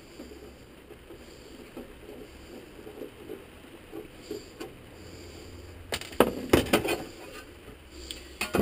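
Boxed parts and packaging handled by hand: a quick cluster of knocks, clatters and rustles about six seconds in, and a few more near the end, over a faint background.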